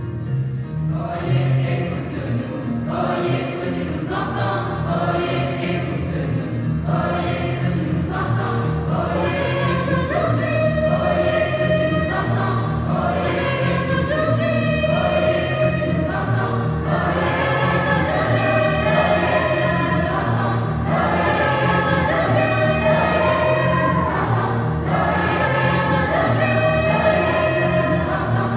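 A large mixed youth choir singing in parts, entering about a second in and growing fuller and a little louder, over a steady repeating low pulse.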